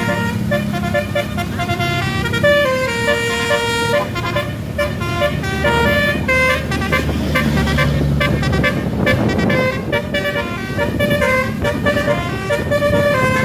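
Tour bus 'telolet' musical multi-tone horn playing a quick tune of short notes stepping up and down, over the low rumble of the bus engine.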